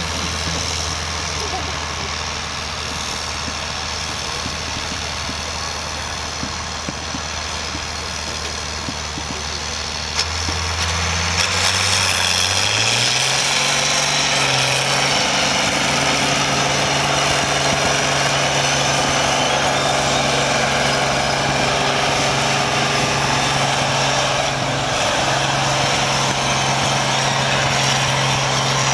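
Turbocharged International Harvester diesel tractor engine idling hitched to a pulling sled, then speeding up about twelve seconds in and holding a steady higher speed under load as it pulls the sled.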